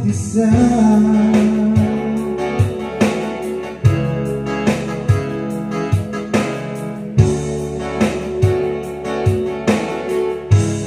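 Karaoke backing track of a Tagalog ballad playing from the karaoke player, led by plucked guitar over a steady beat.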